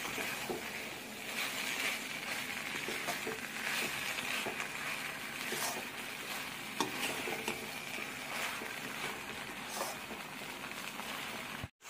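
Boiled kidney beans and fried masala sizzling in a pan as they are stirred together, with a steady hiss and occasional scrapes and clicks of the metal spoon against the pan. The sound cuts out for a moment just before the end.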